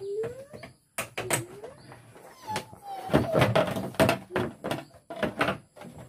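Plastic clicks, knocks and clatter from the loosened top panel of a Sharp washing machine being lifted and moved, with a few short squeaky tones that glide up and down.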